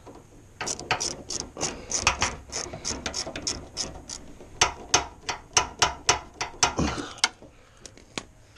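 Quarter-inch drive socket ratchet clicking in quick runs as fasteners on a motorcycle's air box are worked loose, with a short break in the middle.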